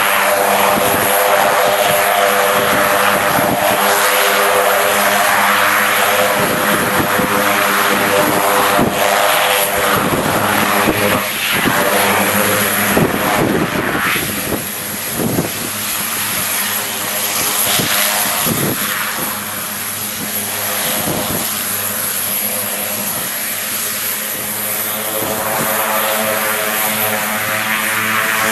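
Turbo Otter's Honeywell Garrett turboprop engine and propeller running on the ground, a steady drone with a high whine above it. The sound eases a little around the middle and builds again near the end.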